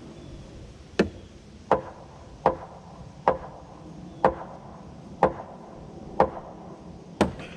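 Hammer blows on a heavy white oak 2x12 header: eight sharp, ringing knocks a little under a second apart, driving the header over to seat it.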